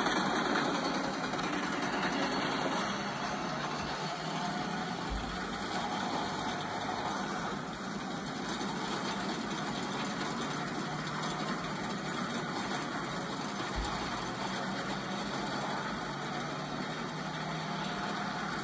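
A movie soundtrack playing through a small device speaker: steady rumbling action-scene sound effects, with two short low thuds about five seconds in and near fourteen seconds.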